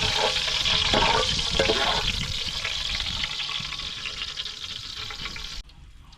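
Pot of food cooking hot over a wood fire, bubbling and sizzling with a steady hiss that fades slowly, then cuts off suddenly near the end.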